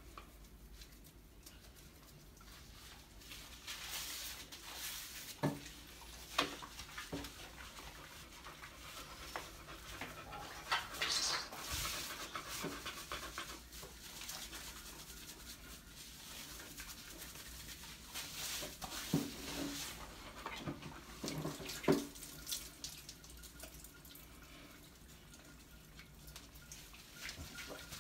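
Beagle being bathed in a shallow tub of soapy water: wet squishing and rubbing of hands lathering its fur, with soft sloshing and a few sharper splashes scattered throughout.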